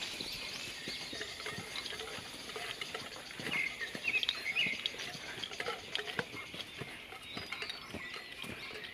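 Hiking footsteps crunching on a dirt forest trail, with rustling of brushed leaves and the scraping of the walkers' movement. Birds chirp in the background, most clearly a short run of calls a few seconds in.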